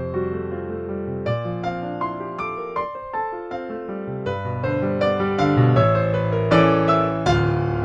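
Piano music: struck notes in a flowing melody over held lower notes, growing louder in the second half.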